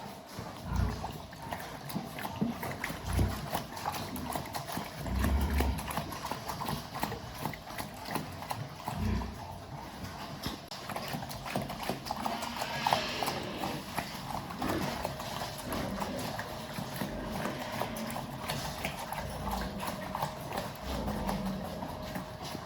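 Pigs in a pen: many quick clicks and knocks with occasional low thuds, under a faint steady hum.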